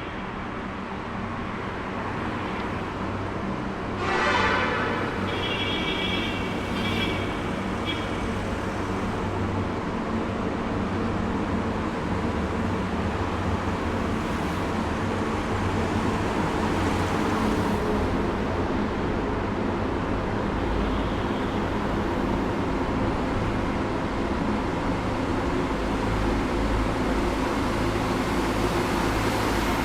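Highway traffic running through a road tunnel: a steady rumble of passing vehicles that swells slightly toward the end, with a brief pitched sound about four seconds in and fainter high tones for a few seconds after it.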